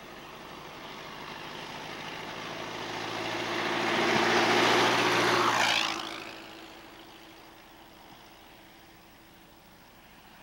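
Vintage open-wheeled race car's engine approaching, passing close by about five to six seconds in with a drop in pitch as it goes past, then fading away down the road.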